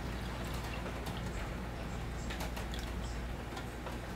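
Scattered light clicks and taps of kitchen utensils as hot cooked fruit is worked through a strainer, over a steady low hum.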